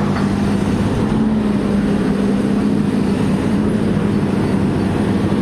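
Tracked excavator's diesel engine running steadily with an even low drone.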